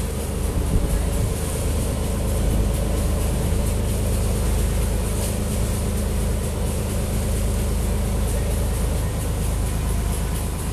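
A boat's engine running steadily underway, with water rushing and splashing along the hull.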